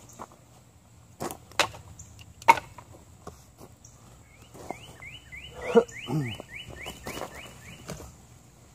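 Split kindling sticks clacking together as they are dropped onto a pile: a few sharp wooden knocks, the loudest about two and a half seconds in and another near six seconds. A rapid series of high rising chirps runs through the second half.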